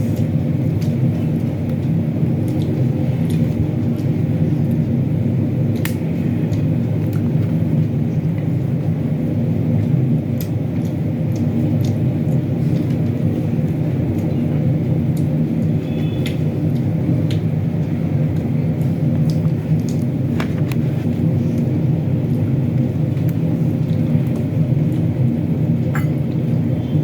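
Steady low rumbling hum throughout, with a few faint clicks and taps here and there.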